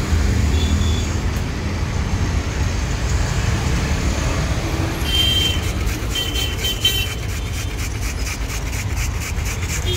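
Steady roadside traffic rumble. About halfway in, rhythmic rasping strokes start, about four a second: beetroot being grated on a metal box grater.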